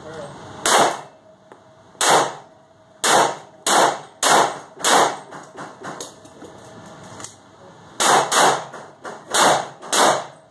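Smith & Wesson M&P VTAC pistol in .40 S&W firing about ten shots, each echoing off the walls of an indoor range. There are two single shots, then a steady string of four, a pause of about three seconds, then two quick pairs.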